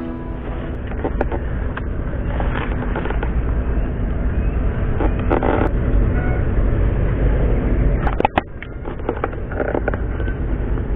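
Low rumbling noise on the microphone, typical of wind buffeting a small body-mounted camera, with rustling and scattered knocks and clicks of mangrove branches and gear as a man climbs through the trees; one sharper knock about 8 seconds in.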